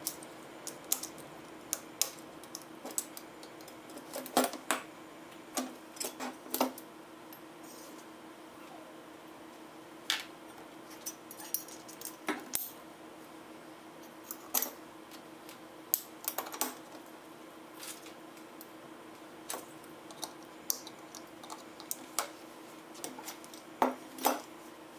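Stainless steel tong parts, pins and washers clicking and clinking against each other as they are handled and fitted together by hand: scattered sharp metallic clicks, irregular and a few at a time, over a faint steady hum.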